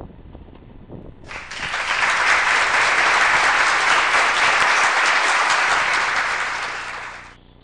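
Applause sound effect that swells in just over a second in, holds loud and steady, and cuts off abruptly near the end.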